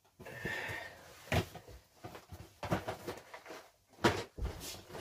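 Cardboard box and the plastic bags of Lego pieces inside it being handled and shifted about. There is a rustle at first, then a few sharp knocks, the loudest about four seconds in.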